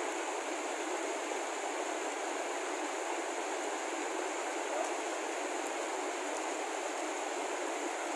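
Steady rush of a shallow, rocky mountain stream flowing over and between boulders.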